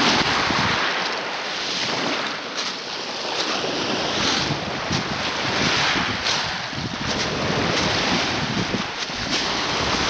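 Small waves breaking and washing up a pebble beach, the surf hissing and rising and falling with each wave, with some wind on the microphone.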